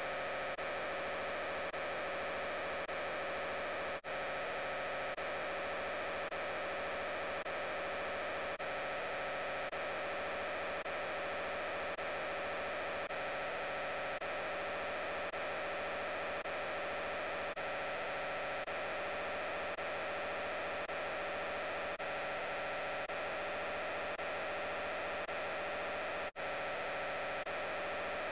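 The 'I'm Peppa Pig' voice clip overlaid on itself so many times that the voices merge into a steady, dense static-like noise with a hum. It drops out briefly near the end.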